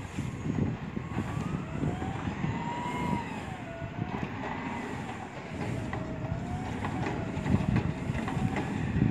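Garbage truck's diesel engine running and revving at the curb, with a whine that rises and falls as its hydraulics work.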